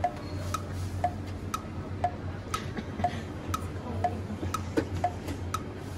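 Steady clock-like tick-tock, two ticks a second alternating between a lower and a higher click, over a low steady hum.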